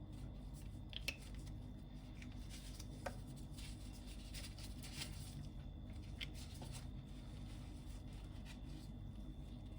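Faint handling noises over a low steady hum: a few light clicks and soft rustling as small craft items are handled.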